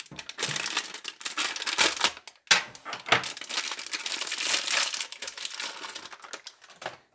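Crinkly foil wrapping of a replacement water-filter cartridge being torn open and crumpled by hand, a busy crackling that thins out near the end.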